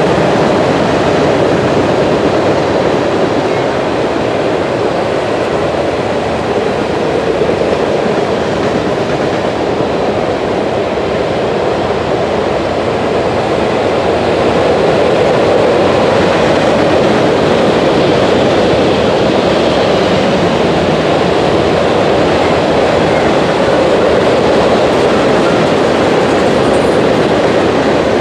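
Freight cars of a mixed freight train rolling past: steady wheel-on-rail noise with no pauses.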